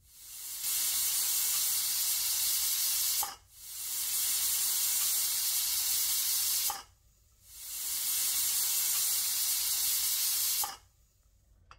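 Pressure cooker whistling three times: steam hissing out from under the weight on the vent, each release lasting about three seconds, building up and then cutting off. Each whistle is one of the releases counted to time the mutton cooking under pressure.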